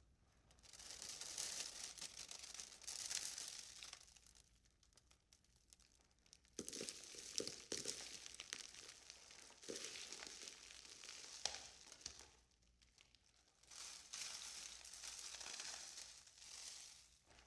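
Wind sound effect with debris: three hissing gusts of wind swell and die away. Scattered crackles and small rattling clicks of blown debris sit mostly in the second, longest gust.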